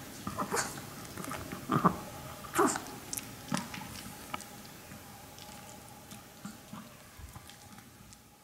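A Maltese dog chewing and crunching a dried pig ear slice: a string of sharp crunches over the first three seconds or so, then only faint scattered ticks.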